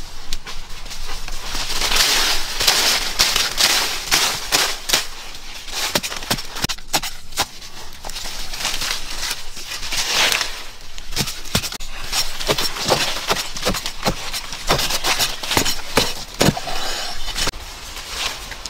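A metal digging blade striking and prying into a hard termite mound: an irregular run of sharp knocks and cracks, with scraping and rustling in between.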